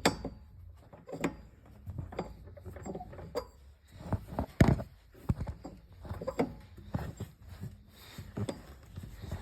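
Repeated clunks from a BMW X3 E83's prop shaft, irregular, about one or two a second, the loudest about halfway through. The clunking is the sign of play in the prop shaft, at its universal joint.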